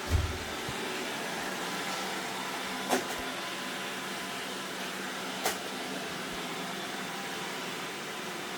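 Roomba robot vacuum running with a steady hum, with three short sharp knocks: near the start, about 3 seconds in and about 5.5 seconds in.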